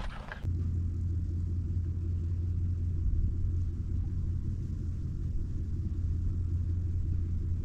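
A steady low rumble that holds at an even level, with almost nothing higher-pitched above it.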